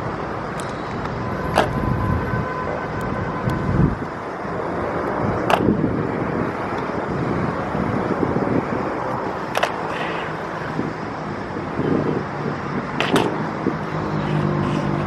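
Steady city traffic noise, cut through about every four seconds by a sharp stomp of the Evzones' hobnailed tsarouchia shoes striking the marble during the slow ceremonial march of the guard change.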